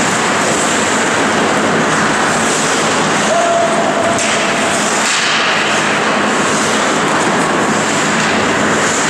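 Steady, loud rushing ambience of an indoor ice-hockey rink during play, with a brief held tone a little past three seconds in.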